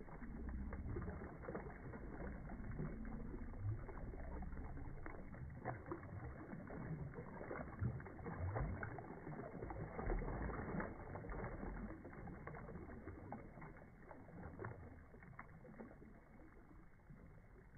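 Shallow water splashing and sloshing around a man's hands and a white sturgeon's tail as the fish is let go, with scattered small splashes, fading over the last few seconds.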